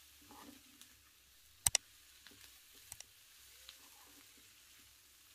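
A metal spoon clinks sharply twice in quick succession against the cooking pan about a second and a half in, then once more, lighter, about three seconds in, over a faint background.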